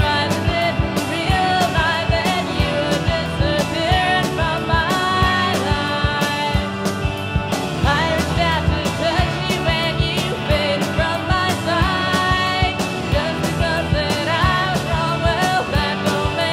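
Late-1980s indie rock band recording: steady drum beat with electric guitars and bass, and a voice singing the melody.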